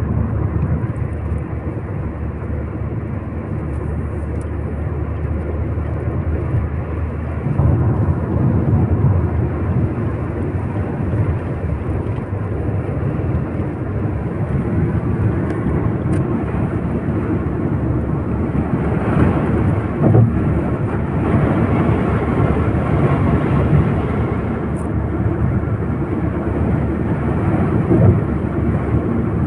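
Steady low rumble of road and engine noise inside a moving car, swelling a little now and then.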